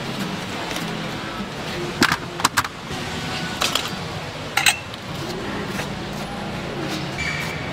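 Steady background noise of a busy market, with a handful of sharp metallic clinks and knocks in two quick clusters around two and four seconds in.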